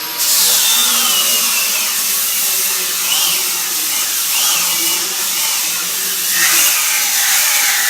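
Cordless angle grinder running under load, with loud grinding noise and a motor whine that dips and recovers several times as it is pushed into the work.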